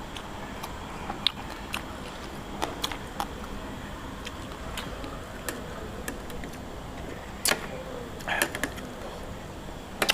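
Eating at a meal: scattered small clicks and clinks of utensils and dishes with chewing, a few sharper clicks standing out, over a steady low background hum.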